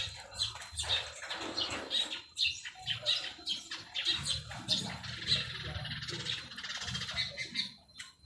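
Baby monkey giving repeated short, high-pitched squeaky cries.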